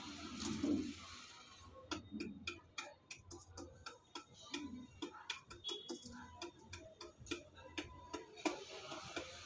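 Rock pigeon pecking rice grains and seeds in a metal pan: sharp, irregular beak taps and clicks, roughly two to four a second. In the first second there is a short, louder, muffled sound.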